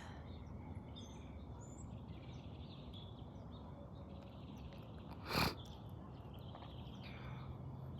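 Quiet outdoor morning ambience with faint birds chirping now and then. A short burst of noise stands out about five and a half seconds in.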